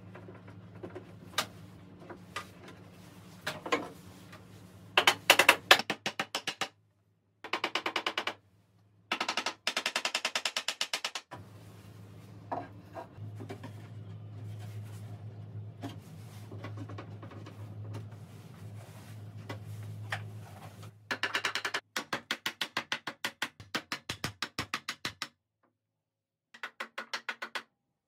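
Cordless impact driver driving screws into wood in about five bursts of rapid hammering clicks, each one to three seconds long. A low steady hum sits in the gaps between the bursts.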